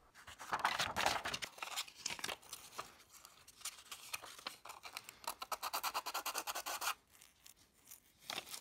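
Sandpaper rubbed by hand over a 3D-printed plastic duckling lure body in quick short strokes, smoothing the rough edges at its glued joints. There is a short pause near the end.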